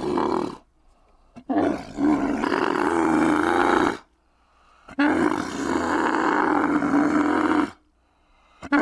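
Dromedary camel bellowing. A call trails off just at the start, then come two long calls of two to three seconds each, and another begins right at the end.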